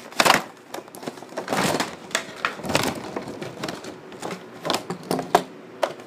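A toy blister pack, a clear plastic shell on a cardboard card, being pried and torn open by hand: irregular crinkling and crackling of plastic with many sharp clicks.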